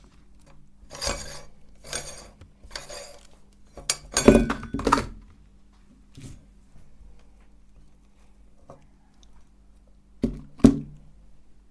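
Metal kitchenware being handled: three scrapes about a second apart, then a loud cluster of clanks and clinks, and two sharp knocks near the end, over a faint steady hum.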